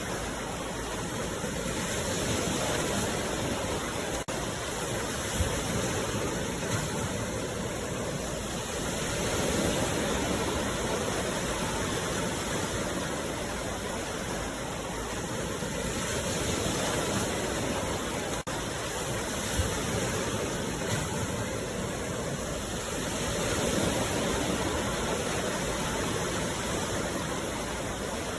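Sea waves washing onto the shore in a continuous rushing surf that swells and ebbs about every seven seconds, with a couple of brief thumps.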